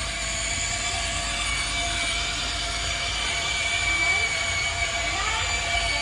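Huina remote-control excavator's electric motors and gearboxes running with a steady whine made of several held tones.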